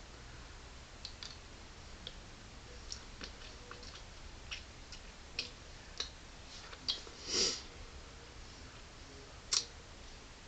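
Faint, scattered small clicks and mouth noises from sucking a sherbet lemon hard candy, with a short breathy rush about seven seconds in and a sharper click near the end.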